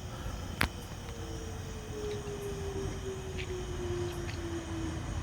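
Outdoor tornado warning siren winding down after being shut off, a single tone sliding slowly lower in pitch over several seconds against steady outdoor background noise. A sharp click sounds about half a second in.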